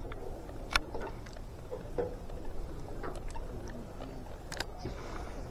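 A few scattered sharp clicks, the clearest about a second in and about four and a half seconds in, over a steady low rumble.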